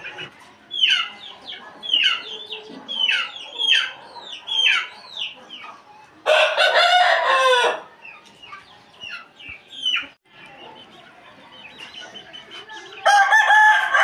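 Aseel roosters crowing: one full crow about six seconds in that lasts about a second and a half, and a second crow starting near the end. Before the first crow there is a run of short, sharp falling calls from the birds, several of them in quick pairs.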